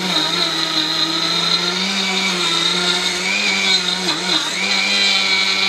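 Electric 500-gram grinder motor running steadily at high speed while grinding beans, its pitch dipping briefly about four seconds in.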